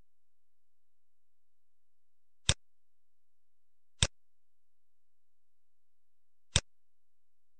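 Three single computer mouse clicks, sharp and isolated, the second about a second and a half after the first and the third about two and a half seconds later, over a nearly silent background.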